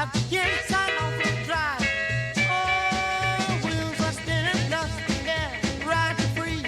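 Upbeat background music with a steady beat and a bending lead melody, in a ska or swing style.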